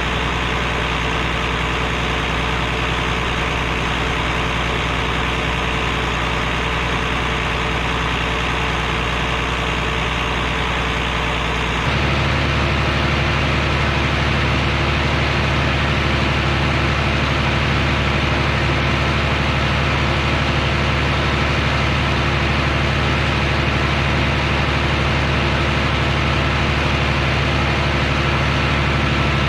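Heavy vehicle engine idling steadily. About twelve seconds in, the note changes abruptly and becomes louder, then holds steady again.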